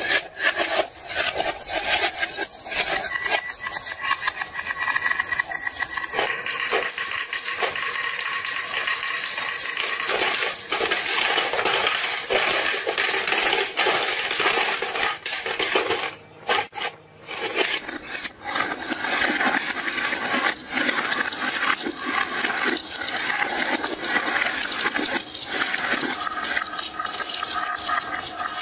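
Many marbles rolling and clattering down wooden marble-run slopes, a steady rattle full of quick clicks that dips briefly about sixteen seconds in.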